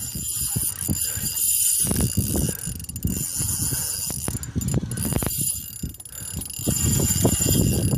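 Fishing reel ticking in quick, irregular runs as a hooked shark is fought on the line.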